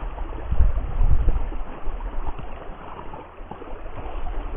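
Wind buffeting the microphone in uneven low gusts, strongest about a second in, over a steady rush of creek water.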